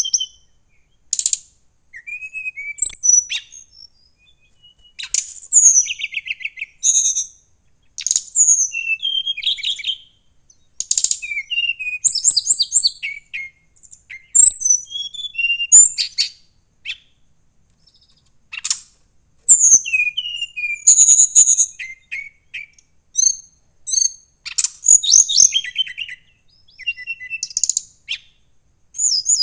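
Brown-chested jungle flycatcher singing: a long run of short, varied high whistled phrases and trills, one every second or two, with brief pauses between them.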